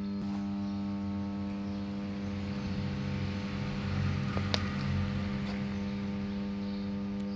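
Oil-cooled substation power transformer humming steadily: a deep electrical hum with a ladder of even overtones above it. A single sharp click about four and a half seconds in.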